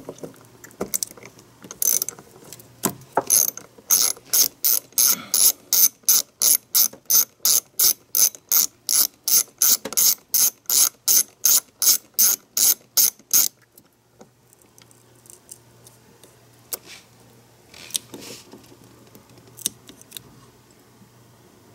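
Socket ratchet clicking as it loosens a terminal nut on a Bosch ignition coil: a steady run of about three clicks a second that stops about 13 seconds in. Only a few faint clicks follow.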